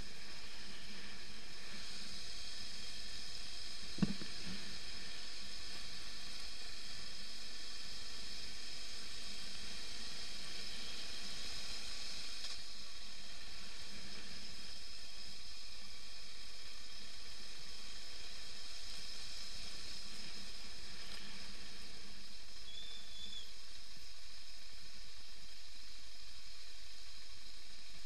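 BMW F 650 GS motorcycle riding along a dirt track, heard as a steady, even hiss without a clear engine note. A single sharp knock about four seconds in.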